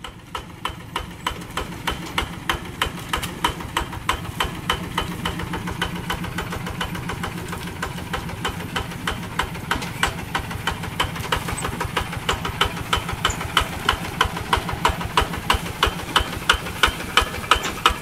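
Single-cylinder Kubota diesel engine of a two-wheel walking tractor running steadily under load, with a fast, even knocking beat.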